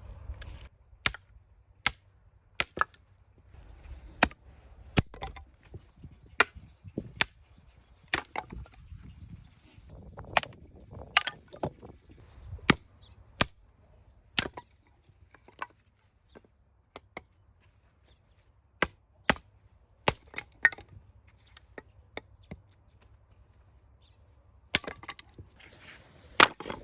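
Axe splitting firewood: a long series of sharp wooden chops at irregular spacing, often close together, with a few pauses of several seconds in the second half.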